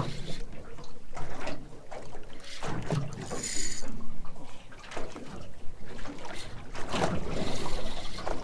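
Wind buffeting the microphone aboard a boat at sea, coming in uneven gusts, with a short hiss about three and a half seconds in.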